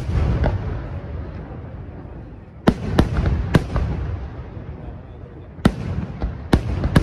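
Aerial firework shells bursting with sharp bangs: a group of three about two and a half seconds in and another three near the end, with a low rumble of echoing reports in between.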